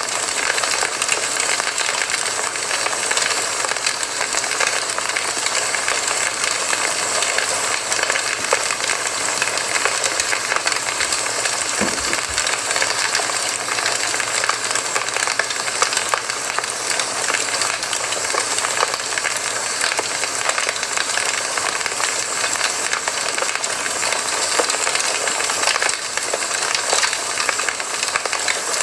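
Campfire burning: a steady hiss of burning wood with scattered sharp crackles and pops.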